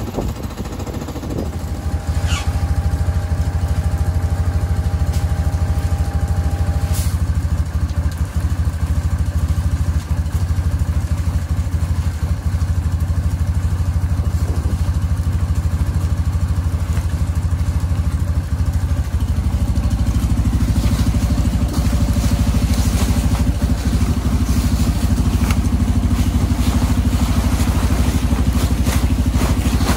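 CF Moto Terralander 500 ATV engine idling steadily after a cold start. Its note changes and grows fuller about two-thirds of the way through.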